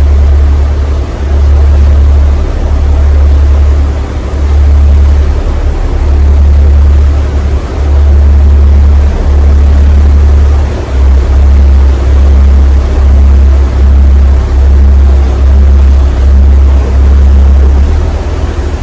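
Aboard a small passenger ferry underway: a loud, deep rumble that swells and dips about once a second, becoming quicker and more regular about halfway through.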